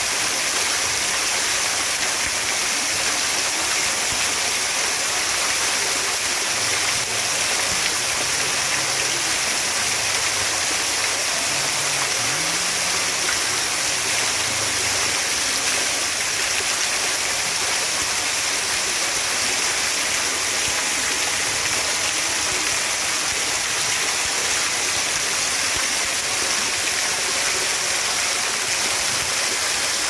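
Fountain spray falling and splashing steadily onto a shallow tiled pool, a continuous even hiss of drops hitting the water.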